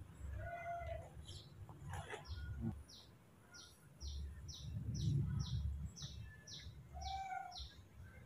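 A small bird chirping in a steady series of short, high, falling notes, about three a second, with two lower calls near the start and near the end, over a low muffled rumble.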